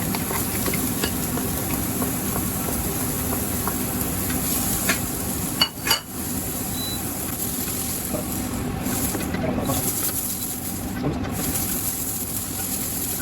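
Onions, leeks and carrots sizzling in hot oil in a pot as they are stir-fried, with a few light clicks of the utensil and one sharp knock against the pot a little before the middle.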